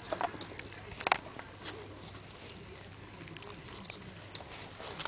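Soft rustling of Maltese dog fur brushing against the microphone, with scattered small clicks and knocks as the puppies play against it; the sharpest knock comes about a second in.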